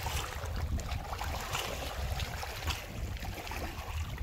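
Small waves lapping and splashing against a rocky lakeshore, over a steady low rumble.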